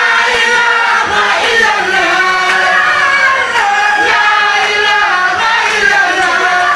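A mixed group of men and women chanting a devotional song together in chorus through microphones, loud and unbroken.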